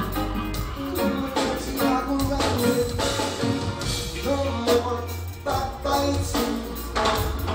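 Live reggae band playing: electric guitars, keyboards, bass and drum kit in a steady beat, with singing over it, heard from among the audience.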